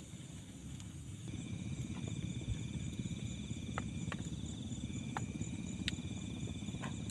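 Insects, crickets or similar, chirring steadily in several high tones, one of them a fast pulsing trill. Underneath is a low rushing noise that gets louder about a second in, with a few scattered sharp clicks.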